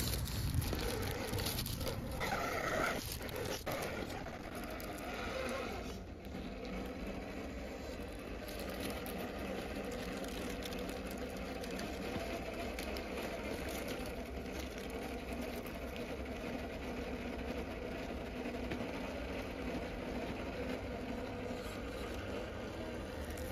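Axial Capra 1/10 RC rock crawler with a Hobbywing Fusion SE 1800kv brushless motor crawling slowly over rocks: a faint steady motor and gear whine, with scrapes and clicks of tyres and chassis on rock and gravel, busier in the first few seconds.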